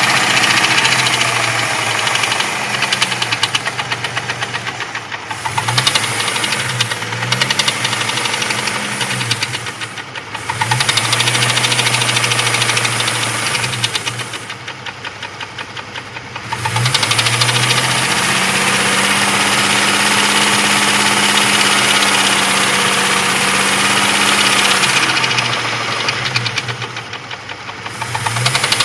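Jeep 4.0-litre straight-six running hot, revved up and held several times and let back down to idle, with a rapid, regular knock that stands out each time the revs drop, about four times in all.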